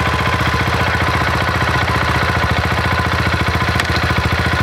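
Husqvarna Vitpilen 701's big single-cylinder engine running at a steady idle with an even, fast pulse, just after being started following the clutch repair.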